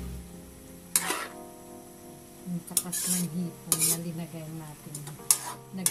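Metal ladle stirring and scraping bean sprouts and vegetables in a steel wok, with several sharp clinks of the ladle against the pan, the loudest about a second in and near the end.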